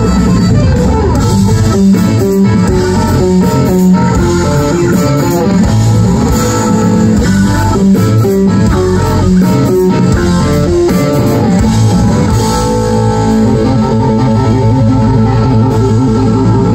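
Live rock band playing an instrumental passage: electric guitars over bass guitar and drums, with no vocals.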